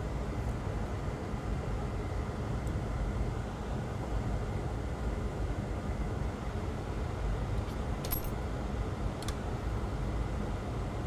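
Steady low rumbling background noise with a few faint, short clicks, two of them about three quarters of the way through.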